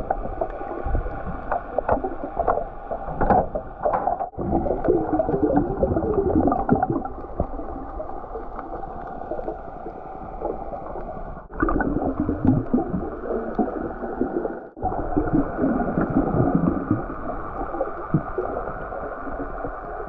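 Muffled underwater sound picked up by a camera below the surface: water noise and bubbling gurgles swelling and easing irregularly as the diver moves. Three brief sudden dropouts break it.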